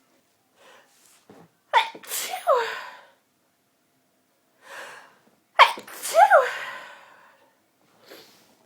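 A woman's sneezing fit, which red wine sets off: two loud, voiced sneezes about four seconds apart, each preceded by a quick inhale.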